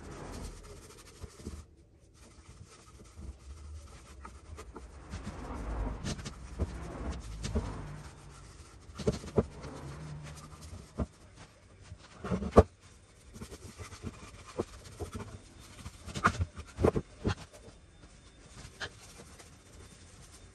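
A brush scrubbing over rough wood, with sharp knocks and clatter as wooden pieces are handled and set down on a workbench, the loudest knock about halfway through.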